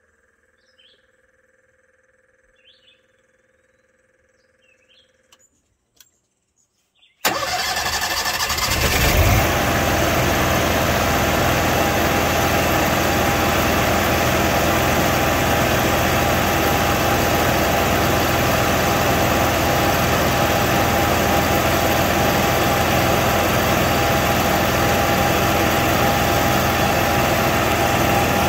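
Onan 5500 RV generator's engine starting about seven seconds in, picking up speed over a couple of seconds, then running steadily with a constant tone. It keeps running smoothly now that the overfilled factory crankcase oil has been drawn down to the proper dipstick level.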